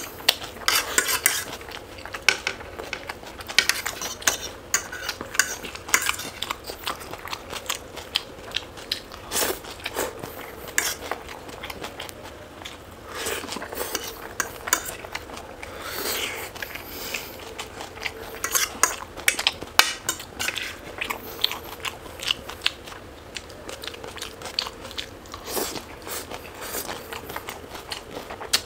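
Close-miked eating: chewing and biting with crunches, and cutlery clinking and scraping against a plate in many sharp, irregular clicks.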